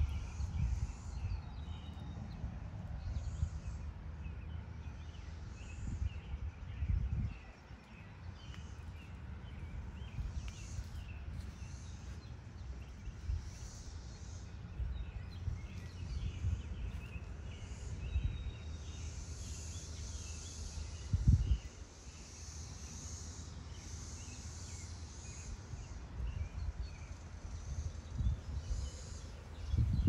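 Outdoor ambience: faint bird chirps and short high hissing calls over a low rumble of wind and handling on a phone microphone, with a few dull thumps from the camera being moved, the loudest about two-thirds of the way through.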